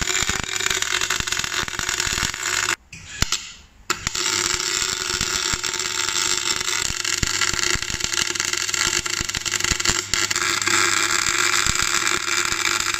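MIG welding arc crackling and sizzling steadily as the planet gears of a BMW E36 small-case differential are welded together to lock the diff. The arc stops briefly about three seconds in, then strikes again and runs on.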